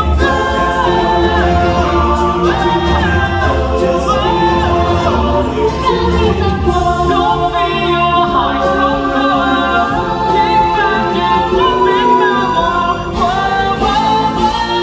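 Musical-theatre song: several voices singing together over backing music, continuous and loud.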